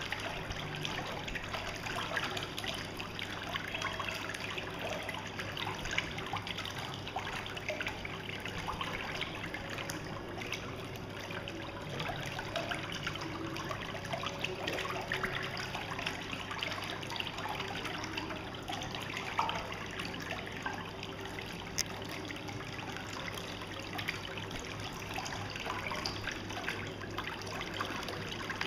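Pedicure foot-bath whirlpool jets bubbling and churning the water steadily, over a steady low hum.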